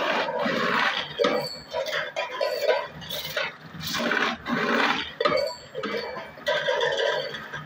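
Tin-plate can bodies clinking and clattering as a can-forming machine works them, with short pitched squeals coming and going.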